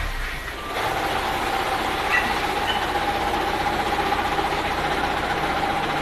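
Water jetting from a fire hose nozzle in a steady rushing hiss. About a second in, a steady high-pitched whine joins it and holds.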